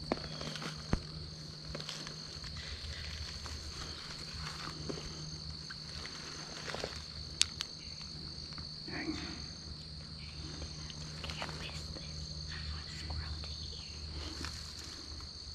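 Insects calling steadily in the woods: one high, unbroken drone with a second insect's pulsing call above it. A few sharp clicks come through, the loudest about halfway through.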